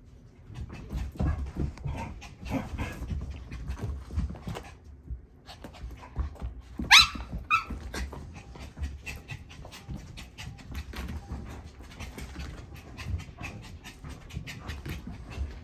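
Pitbull and Maltese playing, with quick, even panting and scuffling. About seven seconds in, one dog gives a short, high yelp that rises sharply, the loudest sound here.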